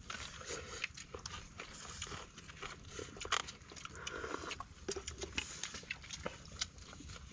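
Close-up eating sounds as people eat opened sea urchins and rice by hand: many short smacks, slurps and light clicks, scattered and irregular.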